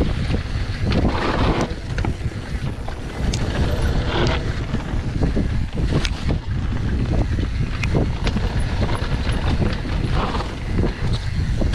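Wind noise on a GoPro's microphone during a fast downhill mountain-bike descent. Under it is the rumble of knobby tyres over dirt and dry leaves, with frequent clicks and knocks from the bike.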